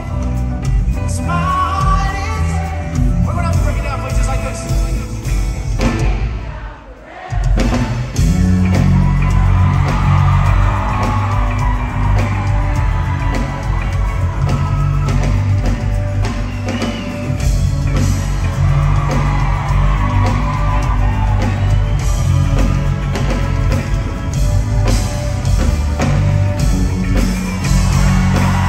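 Live reggae band playing, with a male lead singer over keyboards, electric guitar, electric bass and drums, the bass and kick drum heavy. About six seconds in the band stops dead for about a second, then comes straight back in at full volume.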